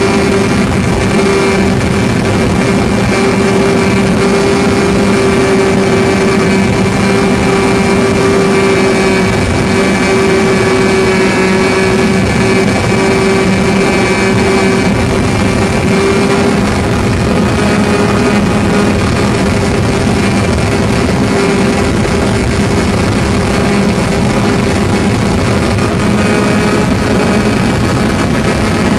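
OS 61 SF two-stroke glow engine of a model airplane running steadily at high revs in flight, heard close up from on board, its pitch holding nearly constant.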